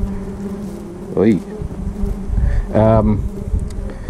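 A flying insect buzzing: a steady hum that swells and sweeps in pitch as it passes close twice, about a second in and again near the three-second mark.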